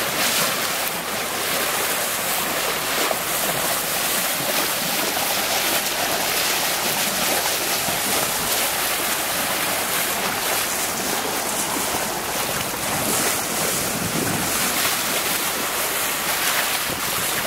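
Water rushing and splashing steadily along a sailboat's hull as the bow cuts through the sea, with wind buffeting the microphone.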